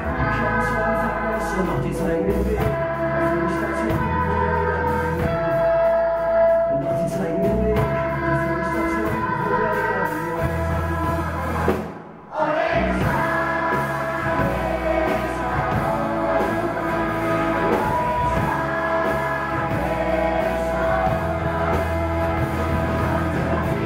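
Choir and band performing a pop song live: a large choir singing long held lines over acoustic guitar, keyboard, drums and electric guitar. The music breaks off for a moment about halfway through, then comes straight back in.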